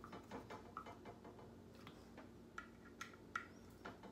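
Faint, irregular small clicks of a screwdriver turning and seating screws on an air pump's cap, snugging them down.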